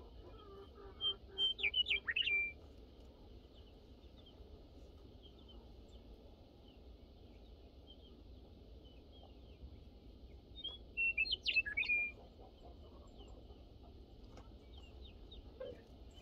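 A songbird singing the same short, quick phrase of clear whistled notes twice, about a second and a half in and again about ten seconds later, with faint chirps in between.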